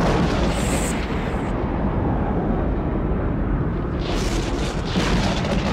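Film sound effect of a mountain erupting and venting gas: a deep, continuous rumble, with a brighter hissing surge at the start and again about four seconds in.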